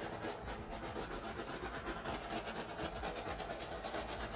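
Handheld butane torch flame hissing steadily as it is passed over wet acrylic pour paint to pop air bubbles and bring up cells.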